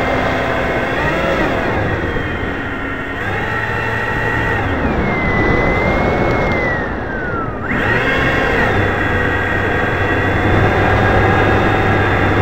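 The scratch-built foam RC Vulcan's motor whining, heard through a keychain camera taped to the nose, over a rough rush of wind on the microphone. The pitch dips briefly twice, then falls slowly for about three seconds from about five seconds in and jumps sharply back up near eight seconds, as the throttle is eased back and opened again.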